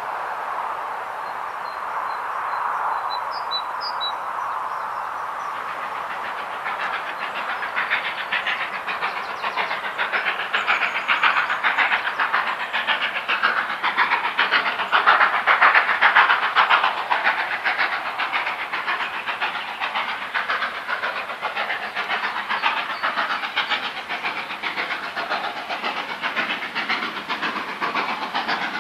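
GWR Castle class four-cylinder 4-6-0 steam locomotive 5029 Nunney Castle working hard up a climb, hauling its train. Its exhaust is a faint, steady hiss at first, then turns into rapid, even chuffing that grows louder as the engine approaches, loudest about halfway through.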